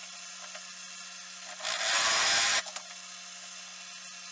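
A bench drill press runs with a steady low hum. About two seconds in, a large conical countersink bites into the edge of a hole in a rusty steel bar for just under a second, a harsh, loud cutting noise, then the machine hums on alone.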